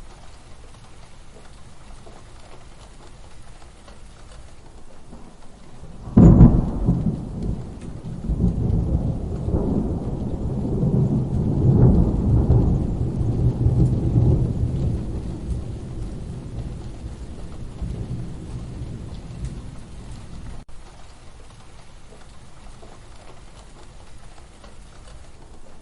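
Steady rain with thunder: a sudden sharp thunderclap about six seconds in, followed by long rolling rumbles that swell and then fade back to the rain.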